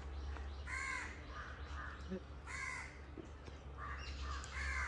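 Crow cawing faintly, a caw about every two seconds.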